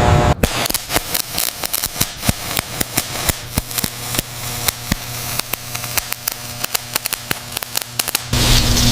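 Rapid, irregular sharp clicks and snaps, like crackling, over a faint steady low hum. A louder machine sound cuts off just after the start and comes back near the end.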